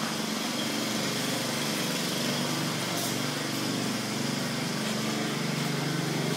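Small lawnmower engine running on a motorised shopping cart as it is ridden, its pitch wavering up and down.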